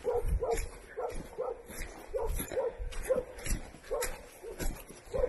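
An animal calling over and over in short, pitched yelps, about two or three a second, with faint footsteps on dry leaves.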